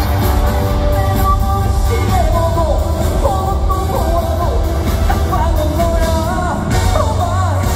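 Live trot song performed over a concert sound system: a male lead vocal over the band's backing, with a heavy, steady bass beat.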